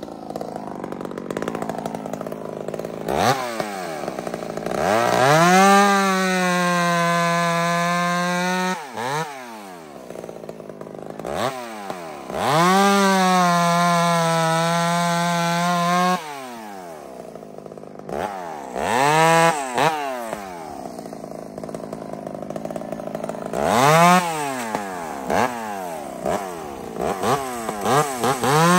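Ported Husqvarna 266XP two-stroke chainsaw, its chain filed in the Baby C grind, revving up and held at steady full throttle while bucking a log, twice for a few seconds each. Between the cuts it drops back to a lower, uneven running note with short throttle blips, then opens up again near the end.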